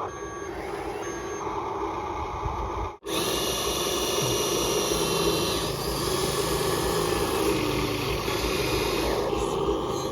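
Radio-controlled toy construction vehicles running: small electric motors and gears whirring under their built-in engine sound effects, with short beeps in the first second or so. The sound cuts out abruptly about three seconds in and resumes as a steadier whirr with a hiss.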